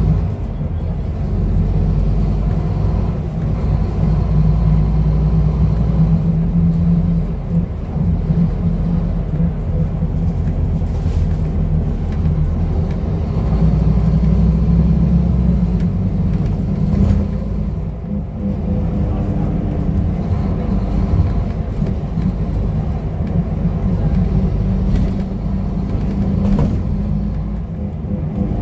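A Scania N230UD double-decker bus's five-cylinder diesel engine and road rumble, heard from the upper deck while the bus is driving. The engine note rises and falls with the driving, over a constant low rumble.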